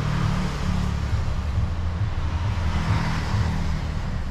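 Steady low motor-vehicle engine drone with an even haze of road noise.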